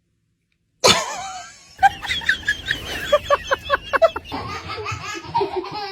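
A sudden loud sound about a second in, then a person laughing hard in quick repeated bursts.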